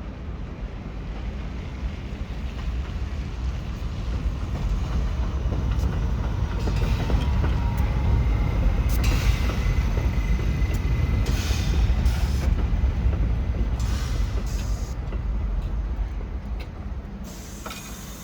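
New York City subway train passing on the elevated line, its rumble growing louder to a peak midway and then fading away, with wheel clicks over the rail joints and a faint thin wheel squeal in the middle.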